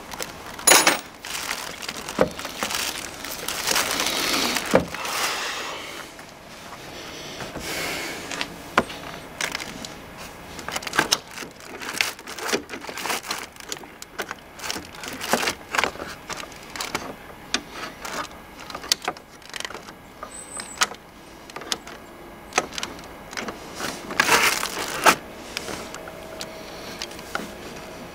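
Irregular clicks, clunks and rattles of hands working at a car battery's terminal clamps and cables, with two longer scraping noises, one about three seconds in and one near the end.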